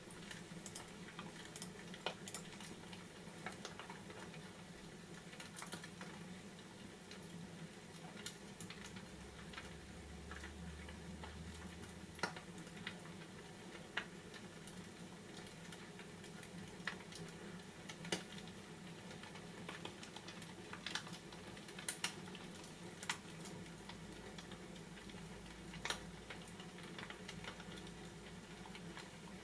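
Fireplace crackling faintly: scattered sharp pops and crackles at irregular intervals over a steady low hum.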